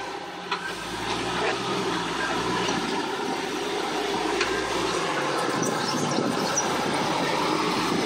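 Jeep Cherokee XJ engine running under load as the Jeep crawls up a rock ledge, growing gradually louder as it comes closer.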